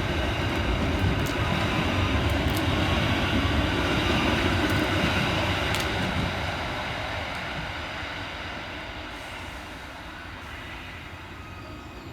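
Two coupled Merseyrail Class 777 electric multiple units pulling out: a steady electric whine over wheel-on-rail rumble, with a few sharp clicks. The sound holds for about six seconds, then fades as the train draws away.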